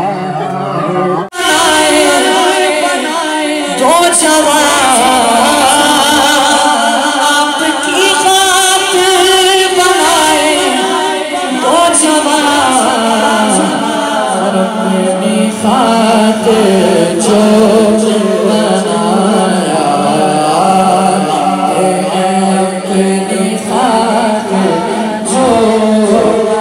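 A man singing a devotional naat into a microphone: one long, melodic vocal line with held and bending notes. There is a sudden break about a second in.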